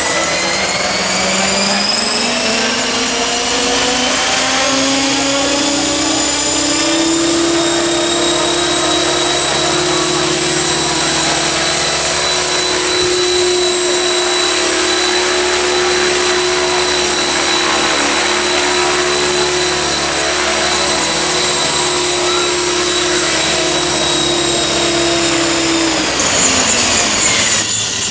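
Radio-controlled model helicopter whining as it spools up, its pitch rising over the first several seconds, then running at a steady high pitch. About two seconds before the end the steady tone falls away and a different, slightly louder sound takes over.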